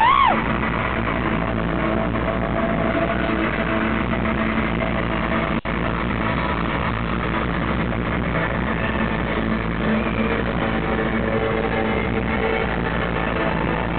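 Live rock band music over an arena PA, an instrumental intro with guitar, heard from the crowd, with a brief drop-out about five and a half seconds in.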